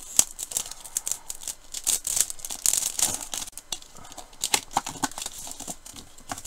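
Clear plastic packaging crinkling and rustling as it is handled: the cellophane sleeve of a die set and the plastic case of a photopolymer stamp set, with quick, irregular crackles throughout.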